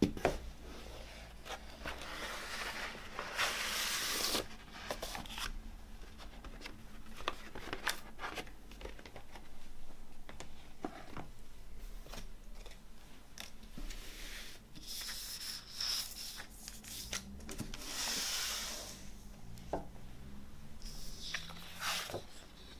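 Cardboard record jacket and paper insert being handled and slid across a wooden tabletop: several rustling, sliding swishes of paper, with light taps and knocks in between.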